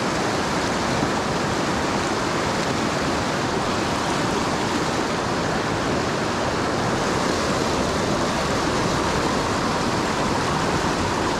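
Fast river water tumbling and rushing in a steady, even roar of moving water, with no breaks.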